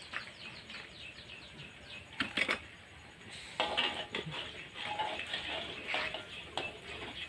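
Metal spatula clinking and scraping in a wok as fried tempeh is lifted out of hot oil, with the oil crackling. A few sharp clinks come about two seconds in, then busier clatter from the middle on.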